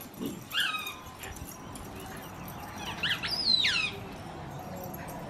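Rubber squeaky dog toy squeaking as a dog bites it: a short squeak just under a second in, then a louder run of high squeaks falling in pitch about three seconds in.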